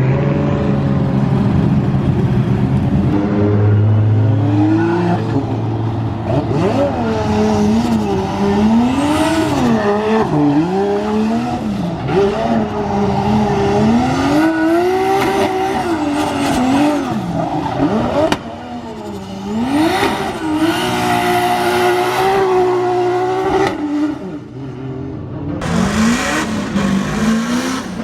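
Drift car engine revving hard, its pitch swinging up and down with throttle changes, over tyre squeal. The engine lets off briefly twice, around two-thirds of the way through and again near the end.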